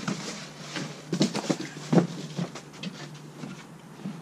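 Handling noises while unpacking and assembling a backpack leaf blower: plastic parts knocking and plastic wrapping crinkling, in a string of short knocks, the loudest about two seconds in. A steady low hum runs underneath.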